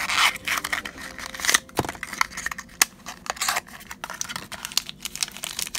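Small cardboard toy box being opened and handled: irregular clicks, taps and rustles of thin paperboard.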